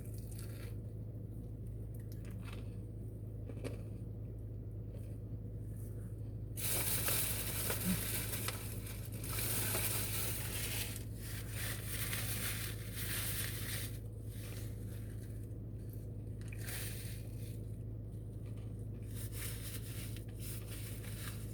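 Biting into and chewing a crunchy fried chicken sandwich close to the microphone, the crunching heaviest from about six and a half to fourteen seconds in. A steady low hum runs underneath.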